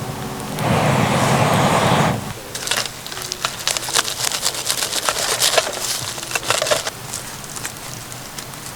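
A loud rushing noise for about the first two seconds, then a wood fire crackling with dense, irregular sharp pops that thin out near the end.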